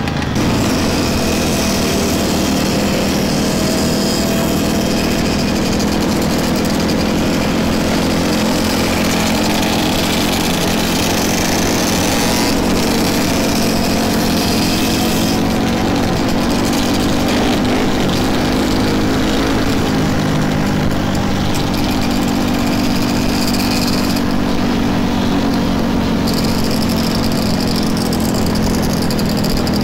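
Dirt bike engine running steadily while riding, heard close up from the bike, its pitch drifting slowly up and down with the throttle, over a constant rush of wind and road noise.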